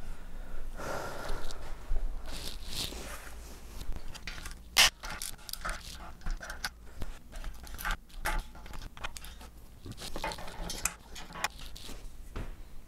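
Fast, jumbled clicks, knocks and scrapes of aluminium extrusion frame parts and a hand tool being worked at the frame's corner joints, sped up about eight times.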